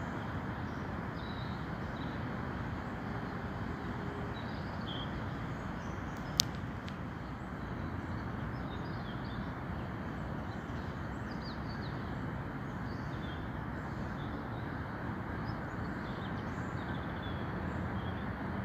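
Steady, distant traffic hum with small birds chirping now and then over it, and a single sharp click about six seconds in.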